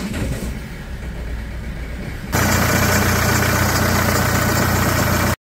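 Renault Kangoo's 1.5 dCi K9K diesel engine idling, heard muffled from inside the cabin, then much louder and closer from the open engine bay about two seconds in. It carries an abnormal noise that is put down to the cambelt (timing belt). The sound cuts off suddenly near the end.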